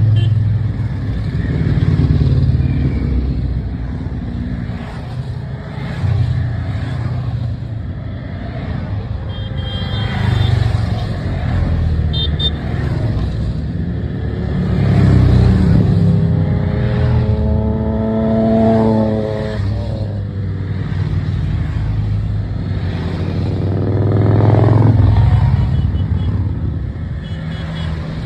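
A stream of motorcycles riding past one after another, the engine sound swelling and fading as each group goes by. Just past halfway, one bike's engine note drops in pitch as it passes.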